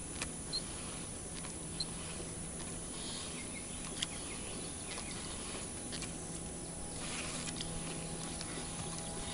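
Quiet outdoor ambience on open water: a steady low hum under a soft hiss of water and air, with a few faint scattered clicks and two short high chirps in the first two seconds.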